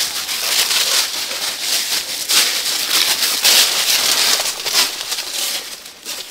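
Footsteps crunching and rustling through dry fallen leaves, an uneven shuffling crackle that rises and falls as the walker moves.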